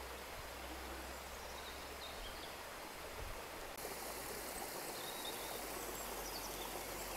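Faint, steady outdoor ambience; about four seconds in it gives way to a small stream trickling over rock slabs, with a few faint high chirps.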